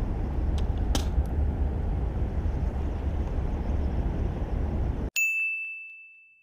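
Wind rumble on the camera microphone with a few faint clicks, then the outdoor sound cuts out abruptly and a single bright ding sound effect rings and fades over about a second.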